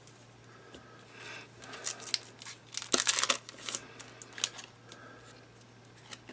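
Baseball trading cards rubbing and scraping against each other as stuck cards are worked apart, loudest about three seconds in, with a few light clicks after.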